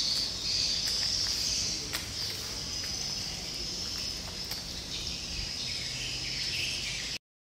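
Insects chirping, a continuous high-pitched drone with a few faint ticks, stopping abruptly shortly before the end.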